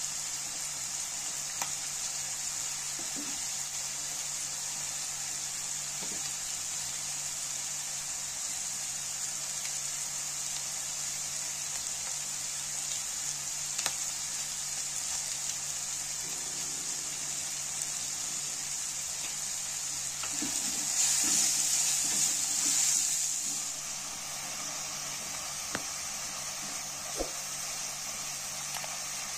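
Chopped vegetables sizzling steadily as they fry in oil in a nonstick pan, with a few faint clicks. The sizzle swells louder for a few seconds about two-thirds of the way through as the spiced mixture is stirred.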